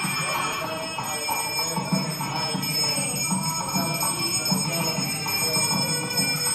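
Temple hand bell rung rapidly and without pause during an aarti lamp offering, its high ringing held steady over music with a regular beat.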